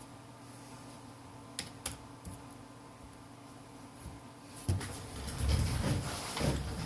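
A thin opening pick clicking lightly against a smartphone's frame and glass, then louder scraping and rubbing as it is worked along the edge under the screen, beginning about two-thirds of the way in.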